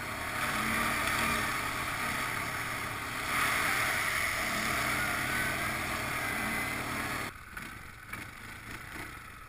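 ATV (quad bike) riding at speed on a muddy dirt road: steady wind rush on the microphone over the running engine. About seven seconds in the sound drops suddenly to a quieter low rumble.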